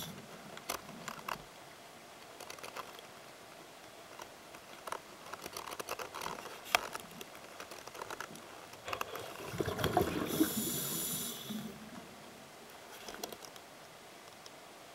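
Underwater audio of a scuba diver breathing through the regulator: scattered clicks and crackles, then about nine seconds in a rush of breath and bubbles lasting two to three seconds, with a hiss high up.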